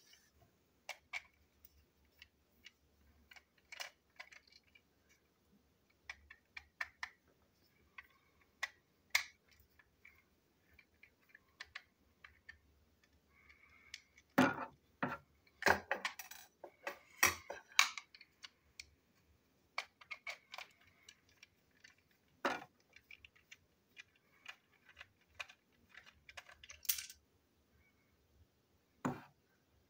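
Scattered small clicks and clinks of a plastic toy train shell and tiny metal screws being handled and set down on a desktop as the toy is taken apart with a screwdriver. The clicks come irregularly, with a busier run about halfway through.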